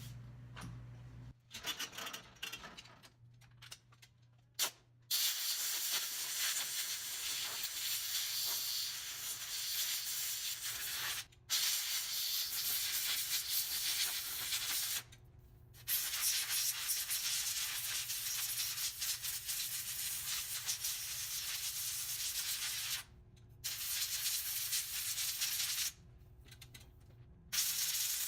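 Loud, steady hissing noise in long stretches of several seconds that start and stop abruptly, with four short breaks.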